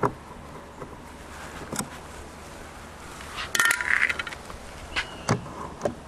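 Metal hand tools and screws clinking against the trolling motor's deck mount: a few sharp clicks, and about three and a half seconds in a short burst of metallic clinking with a brief ring.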